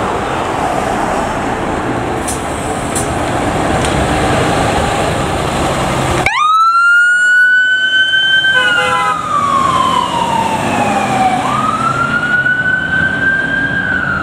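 Heavy rumble of the 2021 Pierce pumper fire engine rolling out. About six seconds in, its siren starts in a wail: it climbs quickly, falls slowly over about three seconds, then climbs again.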